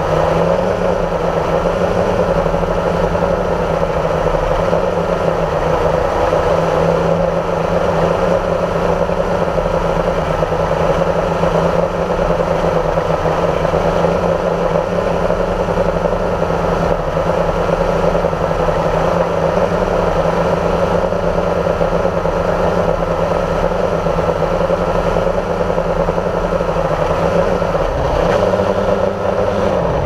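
Motor and propeller of the radio-controlled aircraft carrying the camera, heard on board and running steadily in flight as a continuous hum. The pitch dips briefly near the end.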